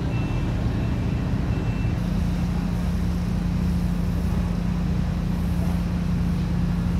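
Heavy drilling-rig machinery running with a steady low drone and a strong hum. A few short high beeps sound in the first two seconds. The hum steadies and grows a little stronger about two seconds in.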